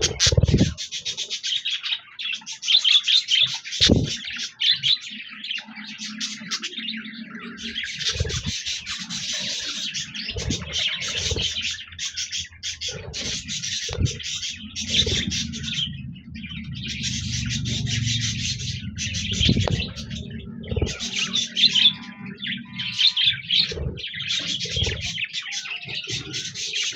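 Budgerigars chirping and warbling in dense stretches of a few seconds with short pauses between, over a few sharp knocks and a low rumble in the middle.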